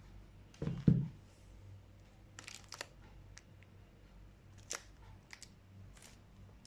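Shoe packaging being handled: a couple of dull thumps about a second in, then scattered crisp crinkling and rustling of paper or plastic.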